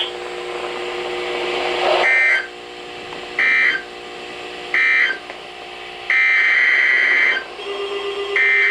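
Emergency Alert System data bursts: three short digital screeches a little over a second apart, the end-of-message code closing the flash flood warning, then two longer bursts that begin the next alert's header. A rising hiss of radio static comes before them, with faint steady tones underneath.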